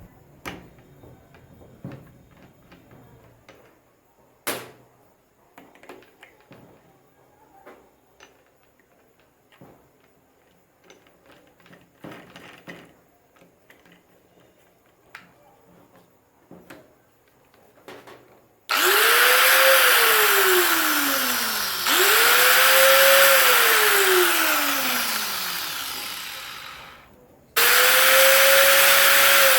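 Angle grinder, refitted with a bicycle-tube rubber washer in place of its damaged one, test-run three times from about 19 s in: each time it spins up fast with a high whine and loud airy hiss, then winds down with a slowly falling whine. Before that, only faint clicks and handling knocks, with one sharp click about 4 s in.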